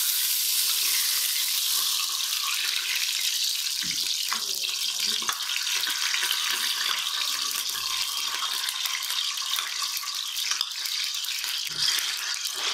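Ghee sizzling as it melts in a hot aluminium pressure cooker: a steady, crackling hiss, with a couple of soft knocks along the way.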